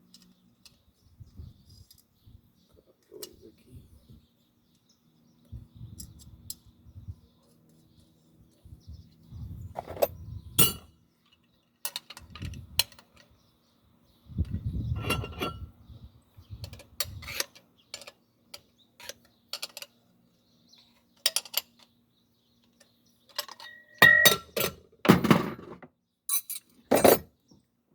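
Metal clinks and knocks of a pressure cooker being handled and worked on, in irregular bursts with a few sharp, loud strikes in the second half. A faint steady hum runs underneath.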